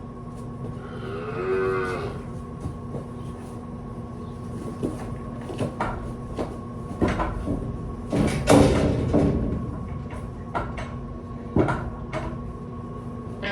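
A dairy heifer calf bawls once, rising and falling, about a second in. Scattered knocks and clatter follow, with a louder burst of scuffling a little past the middle, over a steady hum.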